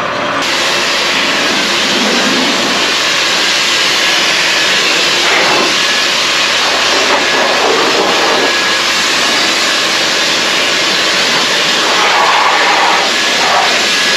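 Compressed air from a Sullair air compressor hissing steadily out of a blow-off nozzle as it blasts dust and chaff off a combine. The hiss starts suddenly about half a second in.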